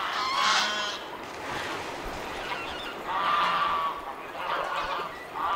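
Canada geese honking on the water: a few calls, one held for about a second midway.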